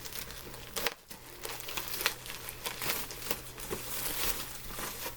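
Crinkling and rustling of packaging as a bolt of fabric is handled and turned, in a string of irregular small crackles.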